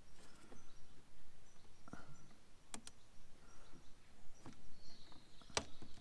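A few sharp metallic clicks as a retaining clip is pried off the lower end of a tractor's throttle cable linkage: two in quick succession about three seconds in and another near the end, over a low outdoor background.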